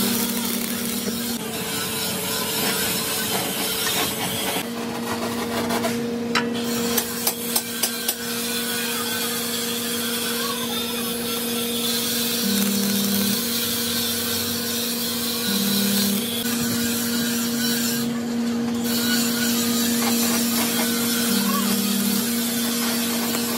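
Handheld angle grinder grinding the edges of a cut steel plate, a continuous abrasive grinding noise, with a quick run of sharp taps about seven seconds in.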